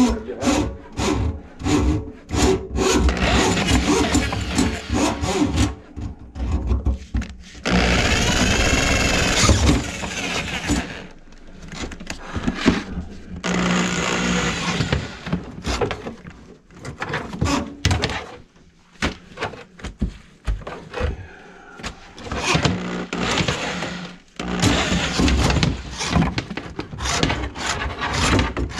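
Handheld electric drum drain auger running in several spells, its motor whirring while the steel cable clatters and rattles in the drum as it is fed into a kitchen sink drain line clogged with food grease.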